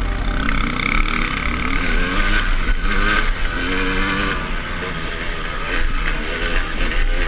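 KTM dirt bike engine on the trail, revving up and falling off again several times as the throttle is worked, with wind and trail noise on the bike-mounted camera.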